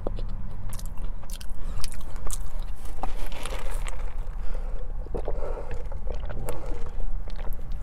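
A person chewing french fries close to the microphone, with many small crunches and mouth clicks.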